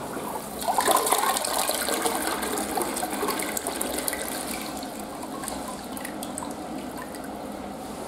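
Western-style toilet flushing: a rush of water swirling through the bowl begins about a second in, then fades to a steadier trickle as the bowl refills.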